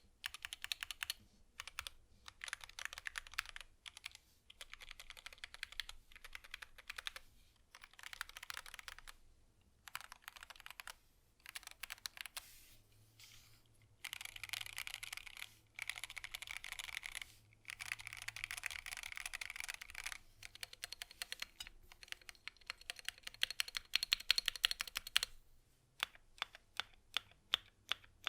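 Typing on a GMMK Pro mechanical keyboard with Gateron Ink V2 switches: runs of fast keystrokes broken by short pauses, with slower separate key presses near the end.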